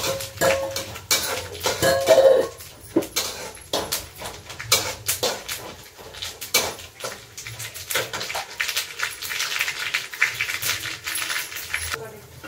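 Metal ladle stirring and scraping in a steel cooking pot, with many quick clinks and scrapes of metal on metal. About nine seconds in a hiss joins in, as steam rises from the pot.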